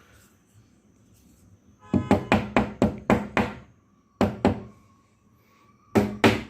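Hammer striking a flat-pack wooden board, knocking it down onto its wooden dowels. A quick run of about seven blows, roughly four a second, comes about two seconds in, then a couple more, then another burst near the end.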